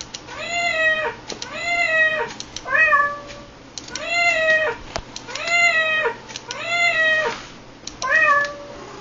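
A domestic cat meowing over and over: about seven meows in quick succession, each rising and then falling in pitch, one of them shorter than the rest. Short sharp clicks fall between the meows.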